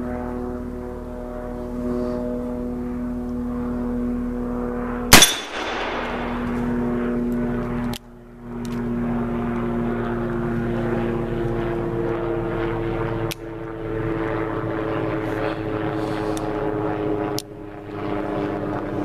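One loud, sharp black powder revolver shot about five seconds in, from a Pietta .44 copy of the Colt 1851 Navy, with a short ringing tail. Under it runs a steady engine drone whose pitch creeps up slightly toward the end and drops out briefly a few times.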